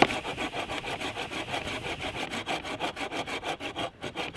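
Hand saw cutting through a log in quick, even strokes, with a short pause near the end.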